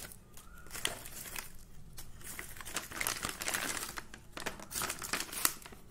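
Foil pouch and plastic bags of a rapid antigen test kit crinkling irregularly as they are handled and the kit's contents are taken out.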